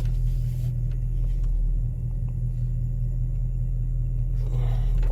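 Engine of a Hyundai Genesis running steadily, a low even hum heard from inside the car's cabin.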